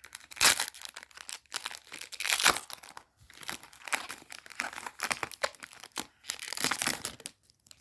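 Foil booster pack wrapper being torn open and crinkled by hand, a continuous run of irregular sharp rustles and crackles.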